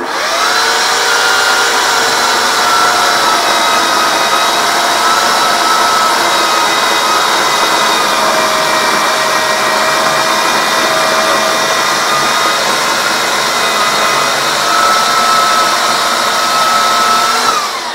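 Titan TTL758CHN 2000 W electric chainsaw starting up and running with a steady whine while its chain cuts through a log. The pitch sags a little mid-cut under load, then rises again. Near the end the motor winds down as the trigger is released.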